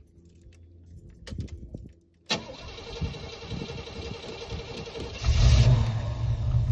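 A car engine is cranked by its starter motor for about three seconds with a pulsing whirr, then catches about five seconds in and settles into a loud, low idle. A few faint clicks come before the starter engages.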